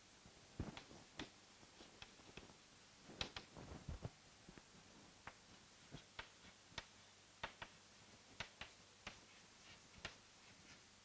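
Faint chalk on a chalkboard while writing: a string of short, irregular sharp taps and clicks as the chalk strikes and lifts from the board, with a few duller knocks in the first four seconds.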